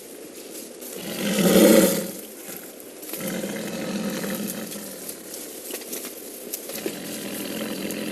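A Siberian tiger caught in a snare roars once, about a second in, for about a second, followed by quieter steady sound.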